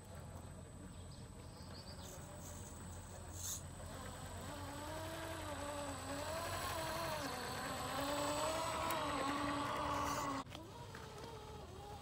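Electric motor and gear whine of an RC scale Land Rover Series III 109 crawler driving slowly over loose soil, the pitch wavering up and down with the throttle. The whine grows louder after about four seconds and drops off suddenly near the end to a fainter whine.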